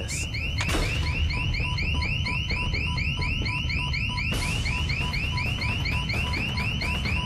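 Electronic alarm sounding: a rapid, repeating rising chirp, about five a second. A pulsing beep joins in about a second in, over a steady low rumble.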